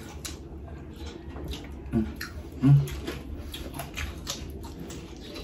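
Close-miked eating sounds: irregular wet mouth clicks and smacks of chewing, with fingers picking at the food. Two short low hums come about two seconds in and just after, the second the loudest sound.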